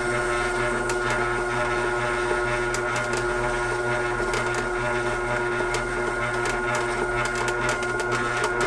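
Ultra wet grinder running with its atta kneader attachment: a steady motor hum as the stainless drum turns and the paddle kneads wheat dough, with many small irregular clicks and knocks throughout.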